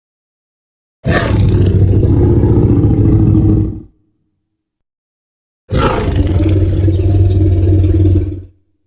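Jurassic Park Tyrannosaurus rex roar sound effect: two long, deep roars of about three seconds each, with a silent pause of nearly two seconds between them.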